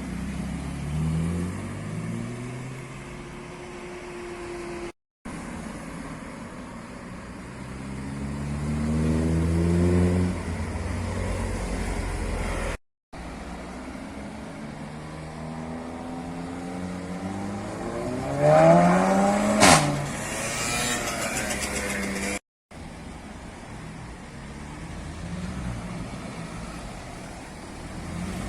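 Tuned performance car engines revving and accelerating hard, the engine note climbing steeply several times in short, abruptly cut clips. About twenty seconds in, a sharp exhaust bang tops the loudest rev.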